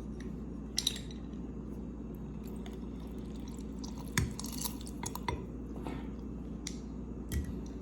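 Lemon halves being squeezed with a hand juicer, with a few scattered light clicks and clinks of the utensil against the dish, over a steady low hum.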